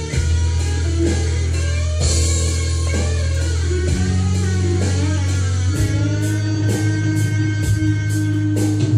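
Electric guitar playing a lead line with bent and sliding notes, ending on a long held note, over a backing of sustained low bass notes. About two-thirds through, a steady high ticking like a hi-hat joins in.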